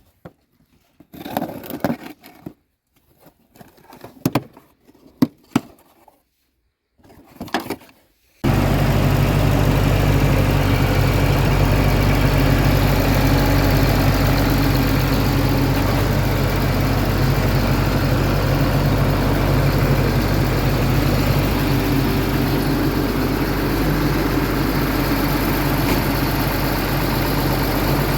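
A few scattered knocks and clatter, then about eight seconds in a Caterpillar diesel engine comes in abruptly, running steadily at idle.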